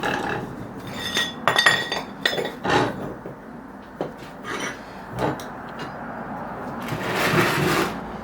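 Empty aluminium gas canister being handled, clinking and ringing briefly with a cluster of knocks in the first few seconds, with a longer rubbing sound near the end as its plastic jacket is worked off.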